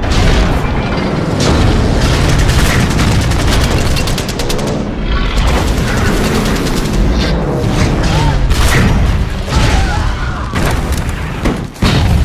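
War-film battle sound mix: heavy explosions booming over one another, with a stretch of rapid gunfire in the first half and music underneath.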